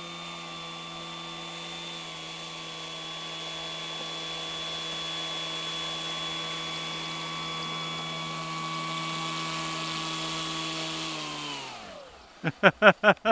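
Electric motor and propeller of an FMS Maule 1500 mm RC plane running at low throttle as it taxis, a steady whine. Near the end it winds down in pitch and stops, and a man's voice starts.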